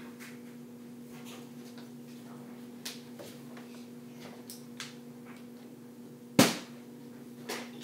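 Plastic water bottle flipped and landing with one loud, sharp thud about six seconds in, after a few light knocks and handling sounds, over a steady low hum.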